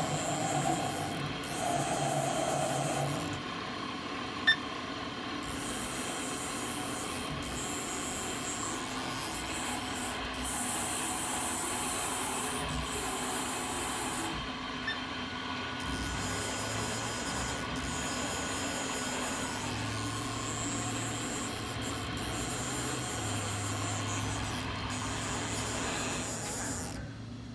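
Haas CNC vertical machining centre powered up and running: a steady machine hum with stretches of high hiss that start and stop, and in the second half a low hum that steps in pitch as it changes. One sharp click a few seconds in.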